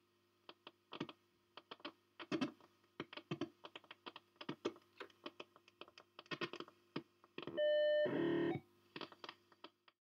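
Strange data-like sound coming through an old radio: irregular short clicks and chirps, with a steady buzzing tone burst lasting about a second around two-thirds of the way in.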